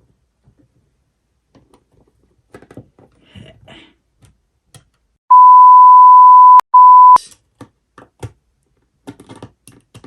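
Loud censor bleep: one steady high beep lasting a little under two seconds, broken once by a brief gap. Faint clicks and taps of small parts being handled come before and after it.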